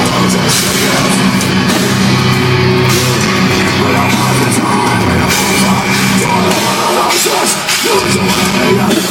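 Metalcore band playing live at full volume: distorted guitars and drums with held low notes.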